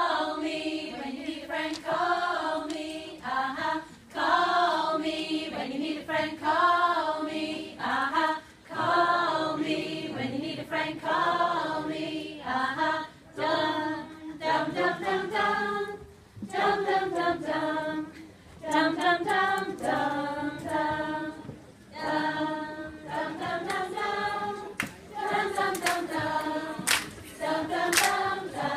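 A group of women singing a song together as a flashmob choir, the melody carried in short phrases with brief pauses for breath.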